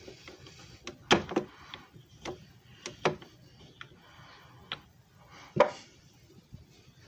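Irregular clicks and knocks of hard objects being handled and set down, the loudest a little over a second in and again past halfway.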